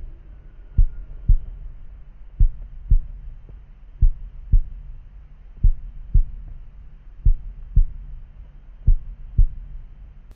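Heartbeat sound effect: slow, regular lub-dub pairs of low thumps, about one pair every 1.6 seconds, cutting off suddenly at the end.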